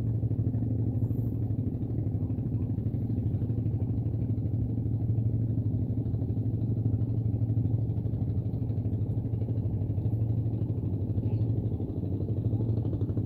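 Steady low engine hum that runs evenly throughout, with no change in pitch or speed.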